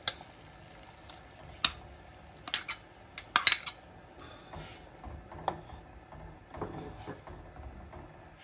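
A metal spoon clinks and scrapes against a ceramic bowl and the rim of a stainless saucepan as curry paste is scraped into boiling water, then stirs the pot. The sharp clinks are loudest about three and a half seconds in, followed by softer scraping and stirring, with the boiling water bubbling underneath.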